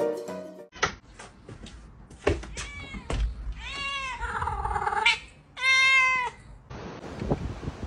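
Domestic cat meowing three times. The middle meow is long and dips down and back up in pitch, and the last is short, steady and the loudest.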